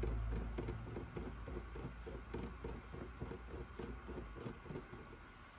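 Light, irregular clicks and taps, a few a second, from small RC crawler axle parts (hex adaptor and hub) being handled and fitted by hand, over a low hum that fades out about four and a half seconds in.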